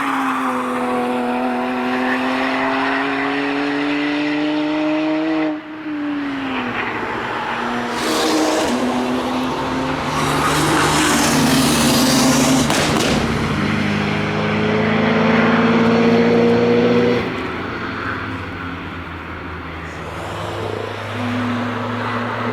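BMW E46 M3 track cars at high revs passing one after another. The first car's engine note climbs slowly and cuts off abruptly about five and a half seconds in. A louder pass follows with rushing tyre and wind noise and a rising engine note, then it fades and another car comes in near the end.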